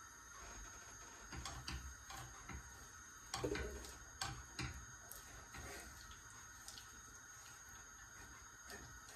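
Wooden spoon stirring a sticky mass in a stainless steel saucepan, with a few soft, irregular knocks and scrapes against the pan. A faint steady hum lies beneath.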